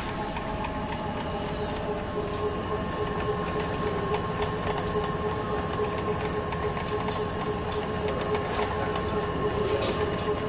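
Mini thermal-transfer ribbon slitter rewinder running steadily, its motor and rollers giving a constant hum with a few steady tones and occasional light ticks as the ribbon is slit and rewound.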